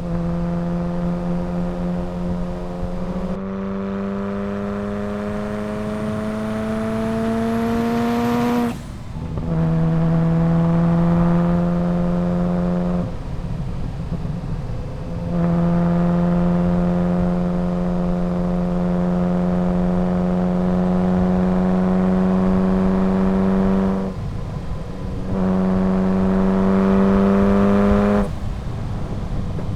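Ferrari F40's twin-turbo V8 pulling under load, its pitch climbing slowly through several long stretches, each broken off by a short drop in engine note as the throttle is lifted or a gear is changed, about four times. A faint high whistle rises alongside the engine in the first stretch.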